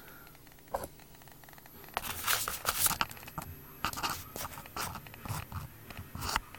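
Close handling noise from a hand fumbling right at the microphone: a single click a little under a second in, then from about two seconds in a quick run of scraping, crinkling rustles.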